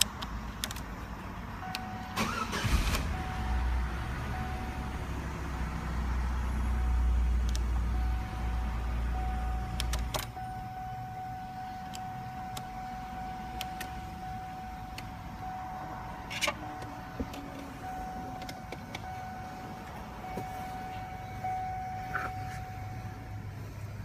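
Scattered clicks and knocks of a 2002 Chevy Cavalier's ignition lock cylinder being pushed and turned by hand in the steering column. Behind them runs a steady high electronic tone, broken at first and nearly continuous from about ten seconds in. A low rumble is the loudest sound for several seconds near the start and ends with a click.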